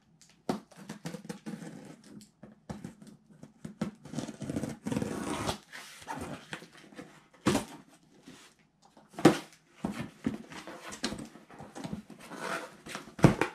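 Small scissors cutting and scraping along the packing tape of a cardboard shipping box, with cardboard rustling and a few sharp knocks against the box.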